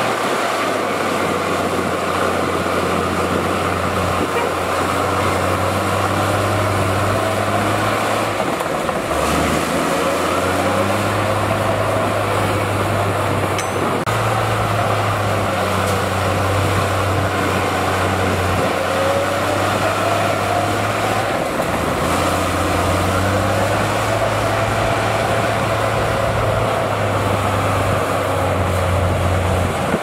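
Heavy diesel earthmoving machinery running steadily under load. The engine note dips sharply about 9 seconds in and again around 21 seconds before picking back up, with a faint whine gliding above it.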